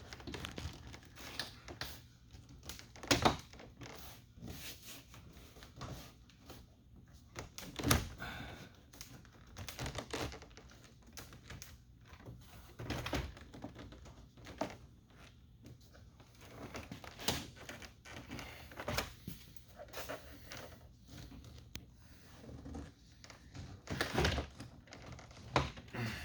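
Irregular knocks, taps and rubbing as a rubber weatherstrip is pressed and worked along its lip on a pickup truck door, with several sharper thumps scattered through.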